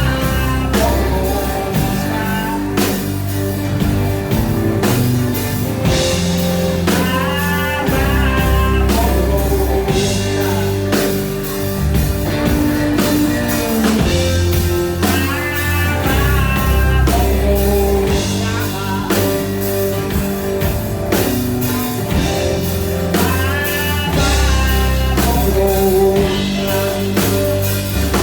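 Rock song by a band: a singer's vocal lines over guitar, bass and drum kit, with steady low bass notes and a regular beat.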